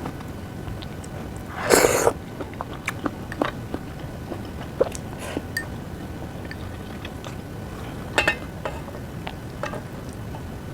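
A person eating close to the microphone: chewing with many small clicks, and a louder short noisy sound about two seconds in and again about eight seconds in.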